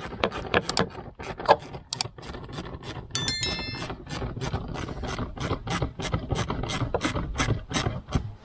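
Ratchet clicking steadily, about four clicks a second, as the 8 mm hose clamp on the air intake tube is loosened. A short metallic ring comes about three seconds in.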